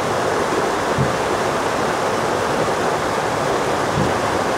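Steady rushing of a waterfall and river water.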